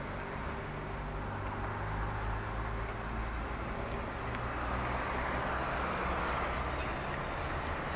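Articulated city bus driving past: a steady low engine drone with tyre and road noise that grows louder as the bus draws close.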